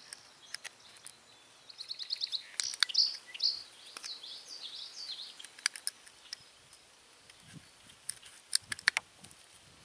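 Sharp little clicks and cracks of a flat chisel blade prying chips of wood out of a hollowed wooden cup, several in quick succession near the end. A bird sings in the first half: a quick trill followed by a handful of short whistled notes.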